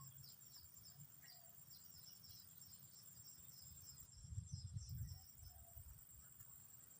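Faint insect chorus: a steady high drone with rapid repeated chirps. A brief low rumble comes about four seconds in.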